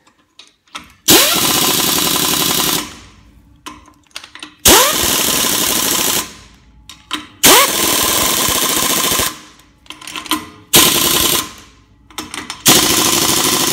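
Pneumatic impact wrench hammering on a wheel's lug nuts in five bursts of about two seconds each. Each burst starts with a quick rising whine as the air motor spins up, then a steady rapid rattle of the hammer mechanism.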